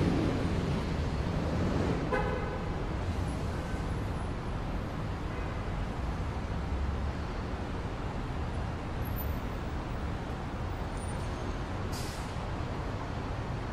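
City traffic noise, a steady rumble and hiss of road vehicles, with a short car horn toot about two seconds in and fainter horn toots a little later.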